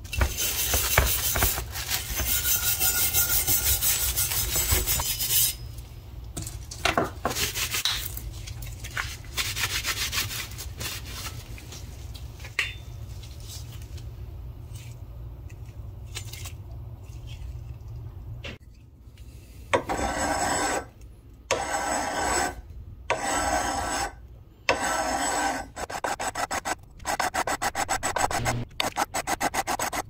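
Hand file rasping on the steel of a vintage hatchet-hammer multitool clamped in a vise: a steady series of push strokes, about one every second and a half, through the last ten seconds. Before that, a few seconds of dense rubbing noise and scattered scrapes as the rust-stripped metal is scrubbed and handled.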